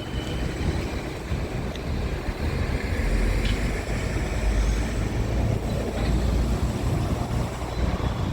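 Rail engineering maintenance vehicle's engine running with a steady low rumble, with a few faint clicks over it.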